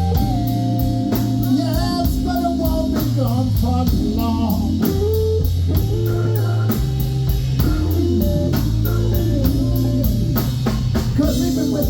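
Live blues band playing a slow blues: an electric lead guitar plays bent-string phrases over bass guitar and drums, with a cymbal ticking steadily.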